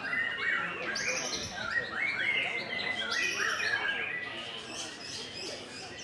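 Several caged white-rumped shamas singing over one another: a dense, unbroken tangle of quick chirps, whistled phrases and trills, easing a little near the end.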